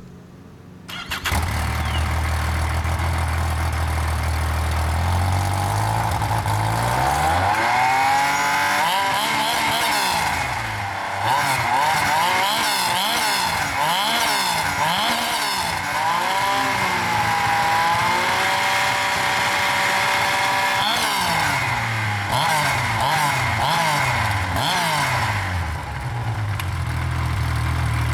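2008 Yamaha Nytro snowmobile's three-cylinder four-stroke engine starting about a second in and idling steadily, then revved up and down repeatedly with quick throttle blips before settling back to idle.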